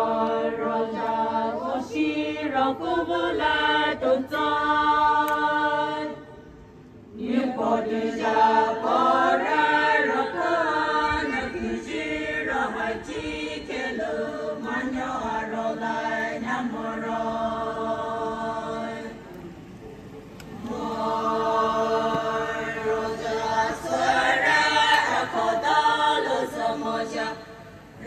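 A group of voices singing a chant-like song together without instruments, in long held phrases with brief pauses about six seconds in and again about twenty seconds in.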